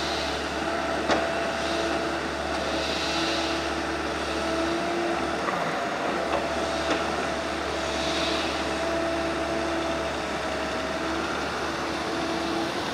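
Diesel heavy equipment running steadily: a compact tracked excavator and trucks at work, with a pitched tone that rises and fades a few times over the engine drone.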